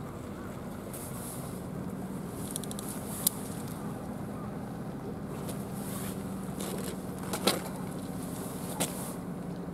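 A steady low engine hum runs underneath a few sharp clicks and taps from handling a horse mackerel in a plastic fish grip on the pavement: one about three seconds in, the loudest around seven and a half seconds, another near nine.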